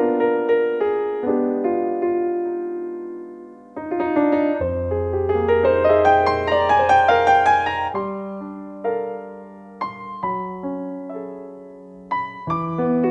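Piano playing a slow passage of struck chords and single notes, with a busier run of notes in the middle over a held low note.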